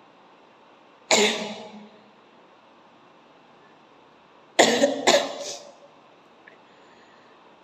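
A person sneezing three times, in sneezes brought on by tickling the nose. The first comes about a second in; the other two follow close together about half a second apart near the middle. Each is a sudden loud burst that trails off.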